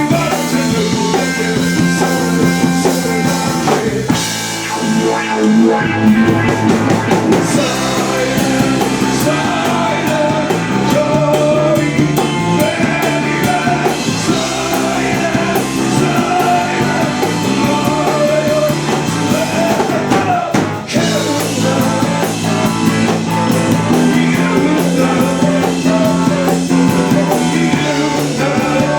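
Rock band playing live, with drum kit and guitar, the full band dropping out for an instant about twenty seconds in.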